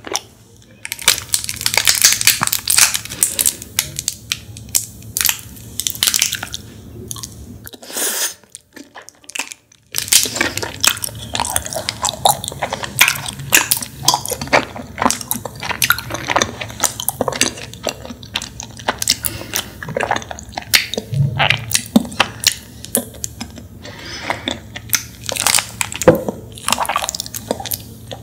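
Close-miked eating sounds: chewing and squishing a cider-flavoured honey jelly from a squeeze bottle, a dense run of small wet clicks and crackles. They break off for a near-silent pause about eight seconds in, then carry on.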